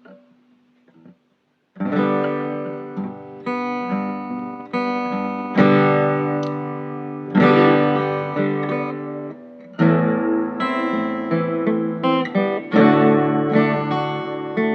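Guitar chords strummed as the instrumental lead-in to a sung hymn. They start about two seconds in after a brief silence, each chord struck and left to ring.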